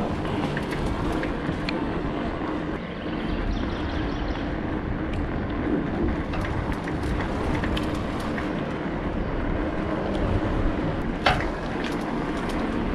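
Steady rumble and wind noise of a bicycle rolling over street paving, with a single sharp knock near the end.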